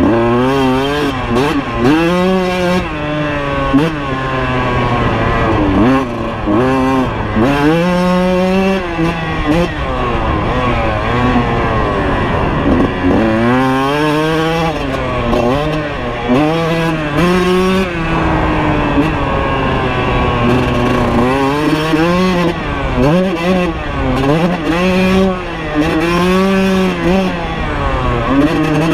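Kawasaki KX125 two-stroke dirt bike engine revving hard and backing off, over and over: the pitch climbs, then drops as the throttle closes or a gear changes, every few seconds.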